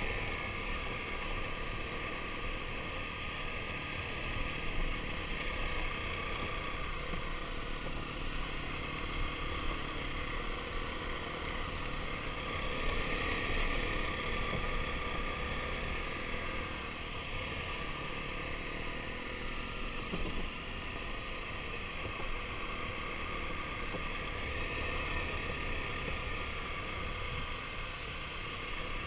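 Dirt bike engine running steadily while riding a rough dirt trail, mixed with wind noise on the camera and a few brief thumps from bumps in the track.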